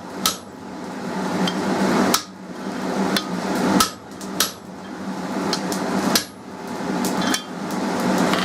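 Hand hammer striking hot mild steel on an anvil while fullering and squaring a bar: about six separate blows a second or two apart, some lighter taps, over a steady hum.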